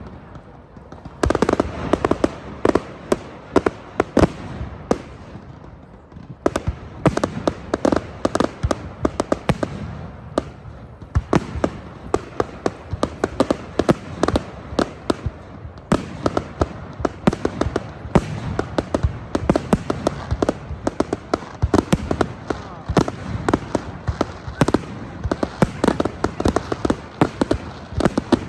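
Firework display finale: rapid, dense bangs of exploding aerial fireworks, several a second, starting about a second in and easing off briefly around six seconds before carrying on.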